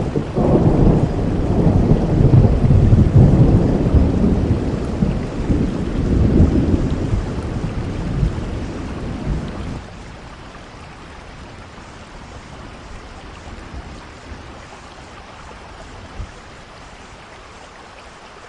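Steady rain falling on a flat concrete roof. Over the first half a loud low rumble lies over the rain, then cuts off abruptly about halfway through, leaving the quieter hiss of the rain alone.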